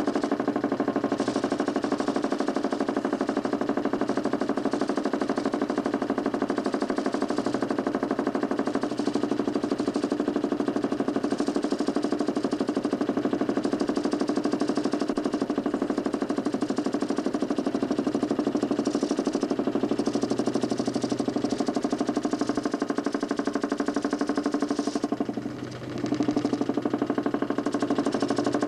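DC motor spinning a large plywood Nipkow disc in a homemade mechanical television: a steady, loud machine hum with a fast rattling buzz. Near the end it briefly drops in pitch and level, then picks back up.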